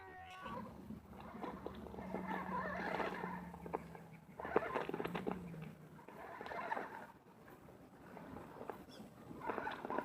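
Redcat Gen8 RC crawler's electric motor and gearbox whining steadily under load while its tires scrabble and crunch on rock during a steep climb attempt. The whine stops about six seconds in, and intermittent crunching and scraping carry on.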